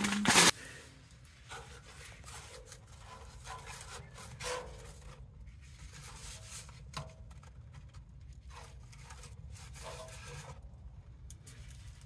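Wood being rubbed and scraped by hand, with scattered light knocks, over a steady low hum. A loud rustle comes right at the start.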